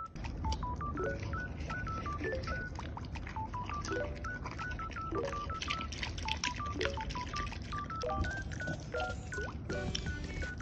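A Border Collie eating from a stainless-steel bowl, with frequent small crunching and chewing clicks, over a light background tune of short beeping notes that steps up and down in pitch.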